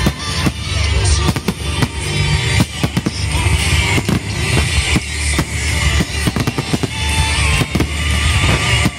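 Aerial firework shells bursting in a dense volley, many bangs a second in quick succession, over music with a heavy bass.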